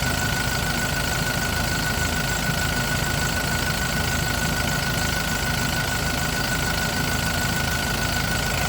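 Yale diesel forklift engine idling steadily, running again after its crank-no-start repair, with a constant high whine over the low engine rumble.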